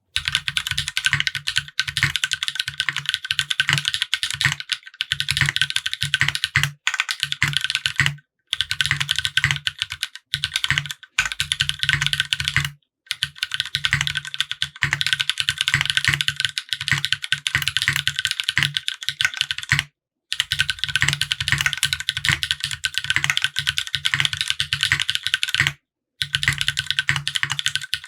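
Fast, continuous typing on a custom mechanical keyboard with an aluminium plate, GMK Serika keycaps and lubed linear switches (Cherry black housings with Kailh red stems, 30 g springs). The dense run of key strikes stops briefly a few times.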